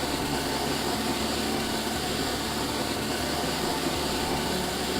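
Steady rush of air from a vacuum drawing through a DrawerVac drawer-mounted inlet, with the motor's hum beneath it.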